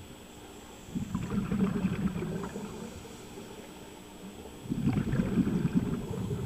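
Scuba regulator exhaust bubbles heard underwater: a diver breathing out twice, each exhalation a gurgling, crackling rush of bubbles lasting about a second and a half, the two about four seconds apart.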